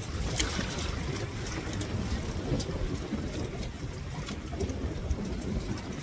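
Wind buffeting the microphone in a steady low rumble, with choppy water splashing and lapping and occasional short crackles.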